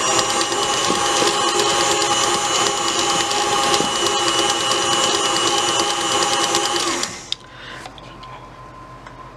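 Electric mixer motor running with a steady whine as it beats cream cheese icing, then switched off suddenly about seven seconds in.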